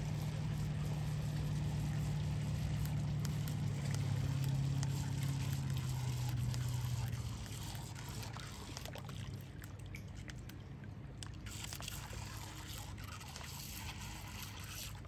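Lake water sloshing and trickling among shallow shoreline rocks, with scattered small splashes. A steady low hum runs under it for about the first seven seconds, then drops away.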